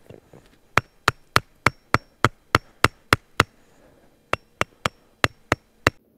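Hand hammer striking a brick in quick, even blows, about three a second: ten strikes, a short pause, then six more, each with a faint metallic ring.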